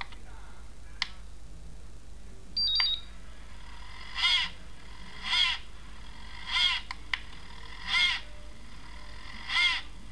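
Button clicks and a short electronic beep from a Turnigy Accucell-6 charger, then its small cooling fan repeatedly whirring briefly up and back down, in short pulses about every second and a half, instead of running steadily.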